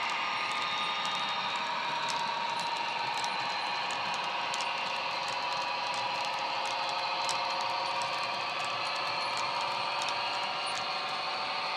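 Model freight train running past: small wagon wheels rolling over the track with scattered light clicks at rail joints, over the steady diesel engine sound of the locomotive's ESU LokSound 5 sound decoder playing through its speaker.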